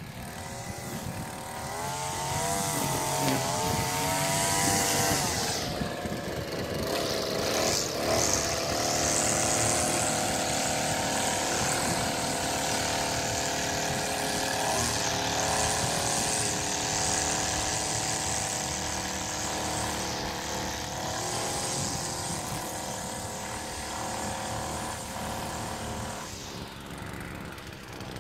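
String trimmer running at high speed while cutting grass. Its pitch rises and falls for a few seconds near the start, then holds steady with a high hiss over the engine note.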